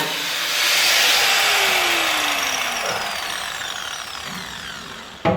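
Angle grinder cutting sheet-steel floor panel, then released so the disc winds down, its whine falling in pitch over several seconds. A sharp knock near the end.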